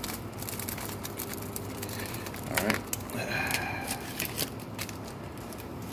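Crinkling and crackling of a small plastic snack bag being handled and pulled open by hand, with a louder rustle about two and a half seconds in.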